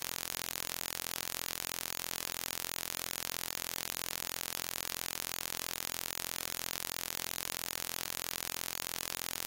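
Steady static hiss: an even, unchanging electronic noise spread across all pitches.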